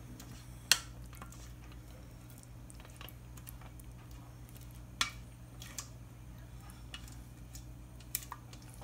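A few sharp clinks and knocks of a saucepan against a ceramic mixing bowl as cheese sauce is poured onto macaroni, the loudest about a second in, over a steady low hum.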